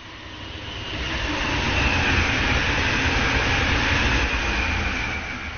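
A large vehicle passing by: a deep rumble and a high whine swell up to a peak and then fade away, the whine falling slightly in pitch as it goes.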